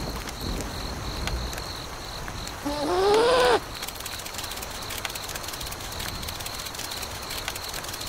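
Steady rain hiss, with a short high-pitched cartoon-style vocal cry about three seconds in that rises then falls in pitch.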